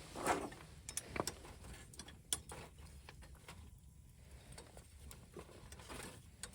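Campfire burning, with scattered sharp crackles and pops of the wood at irregular intervals.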